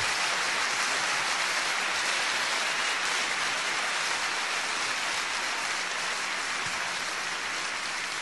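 Audience applauding, a dense, even clapping that slowly dies down.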